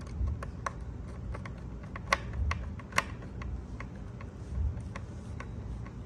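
Small hand screwdriver driving a screw through a smart door lock's back panel into the door: irregular small clicks and ticks as the tip turns in the screw head, two louder clicks about two and three seconds in, with a few soft low bumps of handling.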